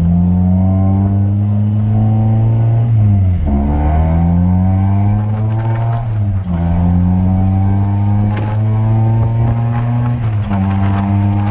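Honda F23A 2.3-litre inline-four engine pulling hard under acceleration, its pitch climbing steadily and then dropping sharply as it shifts up a gear, three times: about 3, 6 and 10 seconds in.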